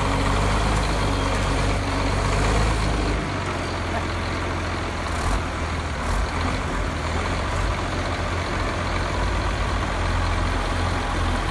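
Caterpillar 966 wheel loader's diesel engine running under load as it holds a crawler tractor up on its forks: a steady low rumble that eases slightly about three seconds in.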